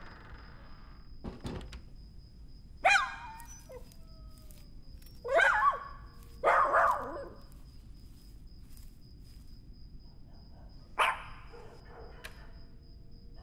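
A dog barking and yelping: four loud calls with bending pitch, about three, five and a half, seven and eleven seconds in. A dull thunk comes about a second and a half in.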